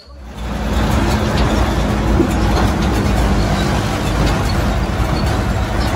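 Massey Ferguson tractor towing a passenger wagon: the engine running steadily under load along with the rumble and rattle of the wagon rolling over a dirt track. The noise swells about half a second in and then holds loud and even.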